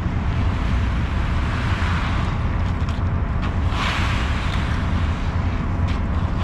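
Concrete mixer truck's diesel engine running steadily with a low rumble while the drum discharges concrete down the chute. A rushing hiss swells and fades midway.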